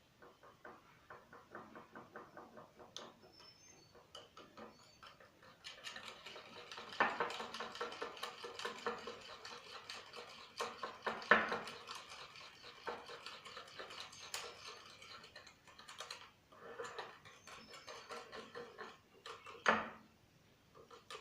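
A spoon stirring and beating patishapta batter in a bowl, clinking and scraping against the bowl in rapid, even strokes, busier through the middle.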